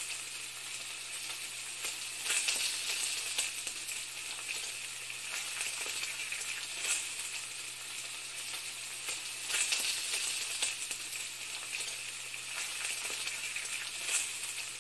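Food sizzling in a hot pan: a steady hiss with scattered louder crackles every second or few.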